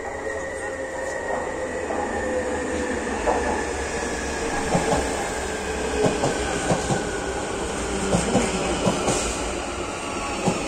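Marmaray electric commuter train pulling in along the platform: a steady whine from its electric drive, falling slowly in pitch as it slows, with repeated clicks from the wheels over the rail joints.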